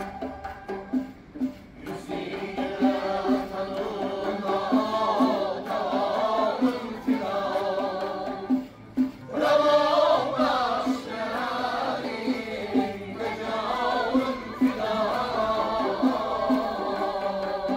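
Background music: a singing voice in phrases over a steady beat of short repeated notes.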